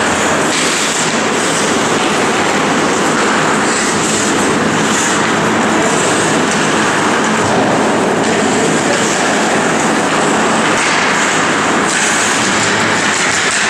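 Steady, reverberant din of an ice hockey game in play, with skate blades scraping the ice in hissing patches that come and go.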